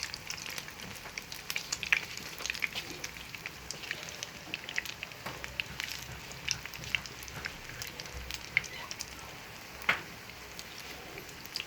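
Corned beef patties, bound with egg and flour, sizzling in hot oil in a small frying pan, with steady hissing and scattered sharp crackles and pops as they brown and turn crispy.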